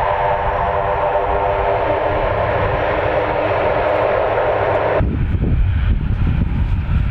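Military jet aircraft engines running loud and steady with a whining tone. About five seconds in, the sound cuts off abruptly to a lower, uneven rumble.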